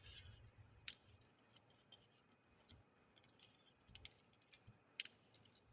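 Faint scattered small clicks over near silence, the sharpest about five seconds in: jumper wires and components being pulled out of a breadboard.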